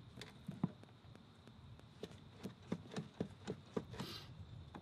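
Adjustable wrench on a brass fitting of a go-kart: a string of faint, sharp metallic clicks as the wrench is turned and reset on the fitting, with a short hiss about four seconds in.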